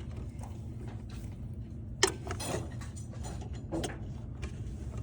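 Small handling clicks of a wire connector being pushed into its socket on a circuit board, a sharp click about two seconds in and another near four seconds, over a steady low hum.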